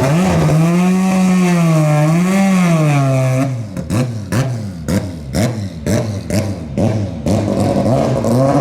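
Group C sports-prototype race car engines on track. For the first three seconds or so a loud engine note wavers up and down. Then comes a rapid string of sharp cracks, about three a second, each with a short rising rev, and a rising engine note again near the end.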